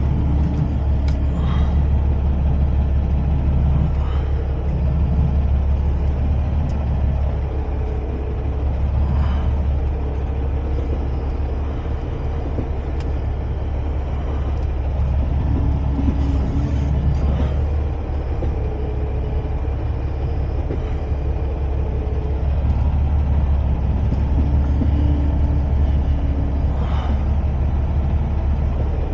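Semi truck's diesel engine running with a steady low rumble, with a few brief humming tones over it.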